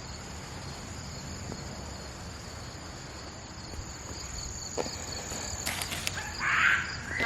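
Steady chorus of summer insects, a continuous high trilling hum, with a single click about two-thirds of the way through and a brief rustle near the end.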